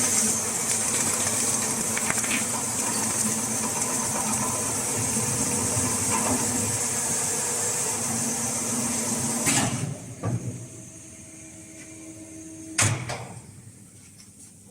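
Machine running with a steady high hiss, like air escaping, that cuts off with a sharp clack after about ten seconds. A thud follows, then another sharp clack near the end.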